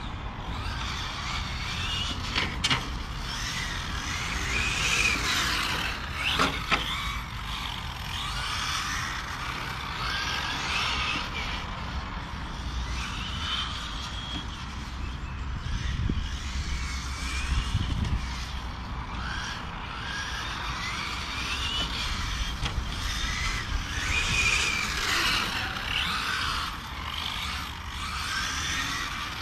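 Electric 1/8-scale RC GT cars (Serpent SRX8 GTe) lapping the track, their brushless motors whining up and down in pitch as they accelerate and slow through the corners, over a steady low rumble.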